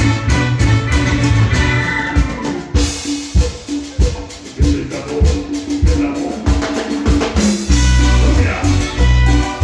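Cumbia band playing an instrumental passage: bass, drums and percussion keeping a steady dance rhythm, the bass dropping out for a few seconds mid-way and coming back near the end.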